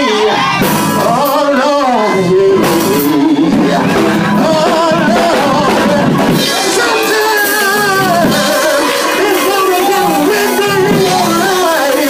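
A man singing a gospel song into a handheld microphone, amplified over a loudspeaker, with music and hand clapping behind him.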